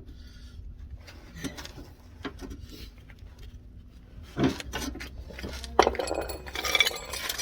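Small metal parts and tools clinking and clattering as they are moved about and set down, with scattered knocks and a busier run of ringing metal clinks near the end.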